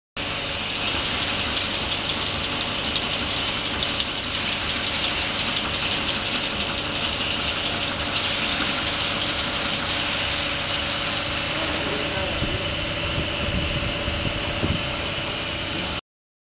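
Cap-cutting machine for 28 mm roll-on caps running steadily: a fast, even ticking over a continuous mechanical hum.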